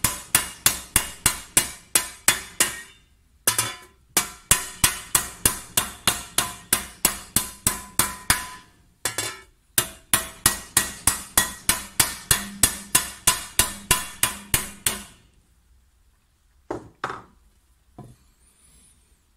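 Metal hammer striking a copper tray over a wooden form to raise it, about four blows a second, each with a short metallic ring, in runs broken by brief pauses. The hammering stops about three-quarters of the way through, followed by a few light knocks.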